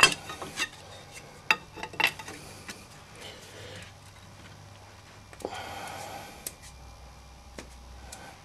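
Irregular metal clanks and knocks as a seized transfer case is worked loose from the driveshaft it is frozen onto. The sharpest knock comes at the start, with a brief scraping rattle a little past halfway.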